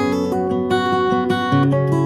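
Background music: acoustic guitar playing, plucked and strummed notes.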